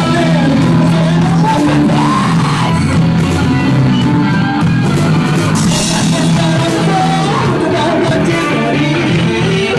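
Metalcore band playing loud and without a break: drum kit with cymbals, bass guitar and guitar together.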